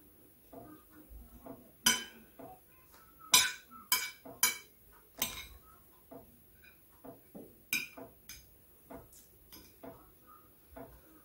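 A metal fork clinking and scraping against a dinner plate while someone eats. There are about half a dozen sharp clinks between two and eight seconds in, the loudest about three and a half seconds in, and softer small taps and ticks in between.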